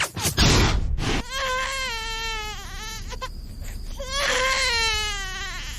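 A baby crying: two long wails with a short pause between them, each sliding slightly down in pitch. Before them a short burst of noise comes about half a second in.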